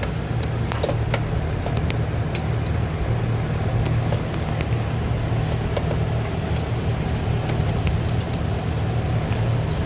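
A steady low mechanical hum, with scattered light clicks and clinks of hand tools on metal as the shifter ring-plate bolts are worked under the car.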